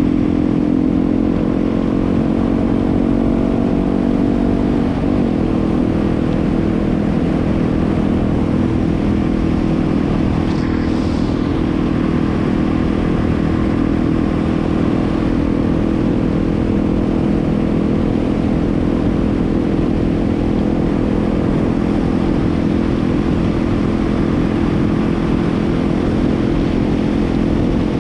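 Yamaha WR250R's single-cylinder engine running under way. Its note climbs slightly over the first few seconds, shifts about five seconds in, then holds steady.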